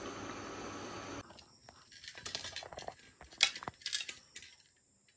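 Steady hiss from a wok of curry simmering on an induction cooktop, cut off after about a second; then a metal spoon clinking and scraping as cooked rice is served from a steel pressure cooker onto a steel plate.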